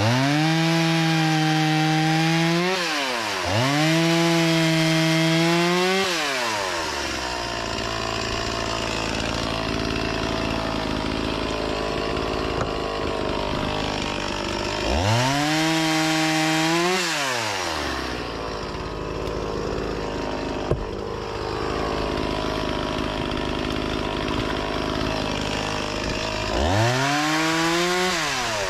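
Two-stroke chainsaw revved up to a high steady pitch in four bursts of two to three seconds each, twice at the start, once midway and once near the end. It drops back to a low idle between the bursts.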